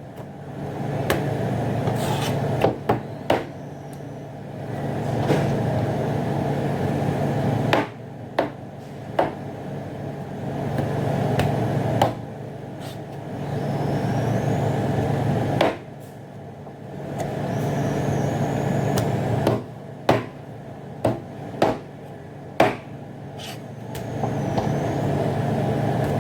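Salmon bones being cut into inch-long pieces: a running, mechanical cutting sound that builds up, holds for a few seconds and stops abruptly, about six times, with sharp knocks in between as the pieces are handled.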